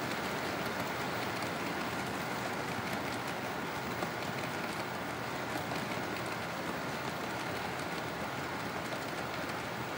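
HO-scale model freight cars rolling past on the track: a steady, even rattling hiss of small wheels on the rails, with a faint steady high tone underneath.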